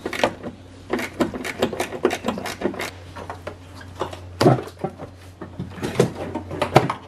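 Irregular clicks, knocks and rubbing of hard plastic as the BMW E36 M3's plastic airbox is worked loose by hand and lifted, with a steady low hum underneath.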